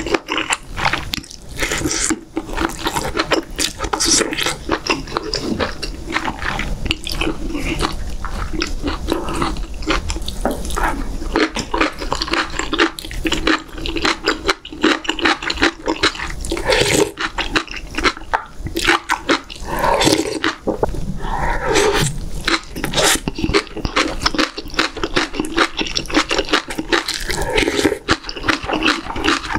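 Close-miked eating sounds: wet chewing and smacking of beef short-rib meat, with slurps of doenjang stew broth taken by the spoonful.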